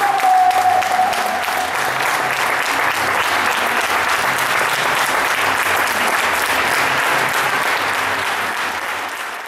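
Crowd applauding steadily, with one high drawn-out cheer in the first second; the clapping fades near the end.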